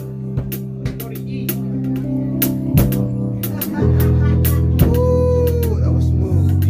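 Live band playing: a drum kit is struck with cymbal and drum hits over sustained bass guitar notes, with a guitar line on top. The bass gets louder about four seconds in.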